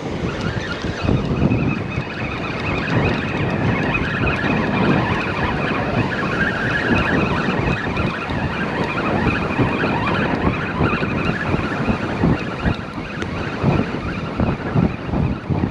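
Strong sea wind buffeting the microphone in gusts, with surf breaking behind it.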